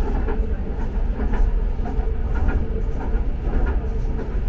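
Busan–Gimhae Light Rail car running at speed, heard from inside the car: a steady low rumble with a faint running hiss and a few light clicks.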